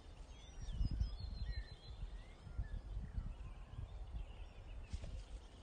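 Wind buffeting the microphone in uneven gusts, strongest about a second in, while small birds chirp in the background.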